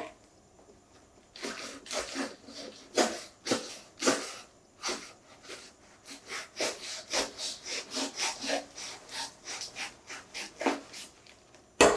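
Hands handling packaging and a thin phone case: a series of short rubs, rustles and clicks, coming quicker and closer together in the second half, with a louder one at the very end.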